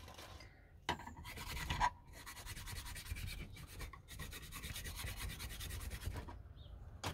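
Rapid back-and-forth scraping on the steel blade of an old chisel, with a short burst about a second in and then a longer run of quick strokes that stops near the end, followed by a single click.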